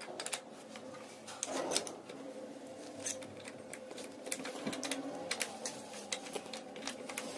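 Irregular metal clicks and clinks of a tubular spark plug spanner being fitted over the spark plug on a Honda CD 70's cylinder head and turned to unscrew it, coming faster from about three seconds in, over a faint steady hum.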